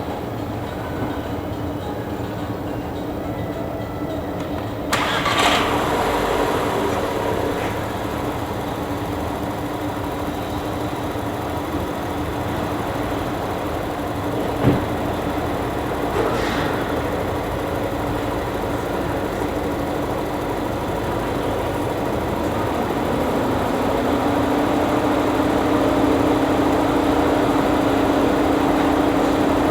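Volkswagen Golf engine running at idle with a steady hum. About five seconds in, a rushing noise joins it, and a sharp click comes about halfway through. Near the end the engine hum rises slightly in pitch and gets louder, as when the idle speed is raised.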